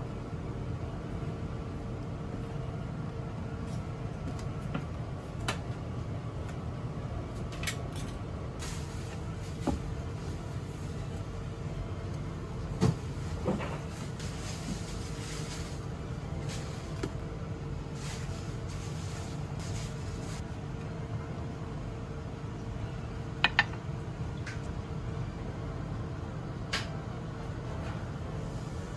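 Steady low background hum with scattered light clicks and taps of a spoon, chopsticks and ceramic dishes being handled while food is plated. A sharper double click comes late on.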